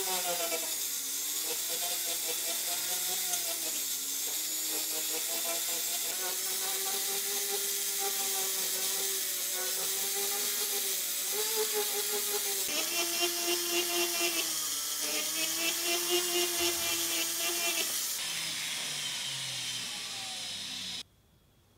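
Rotary engraving handpiece with a fine burr whining as it carves feather lines into white gold, over a hiss of cutting. The whine wavers up and down in pitch and cuts off suddenly near the end.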